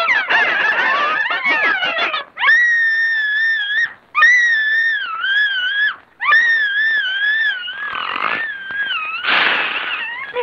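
Cartoon soundtrack: a tangle of squawking hens for about two seconds, then three long, high, wavering wails as a tied-up cartoon mouse cries out in fright, and two rough, noisy outbursts near the end.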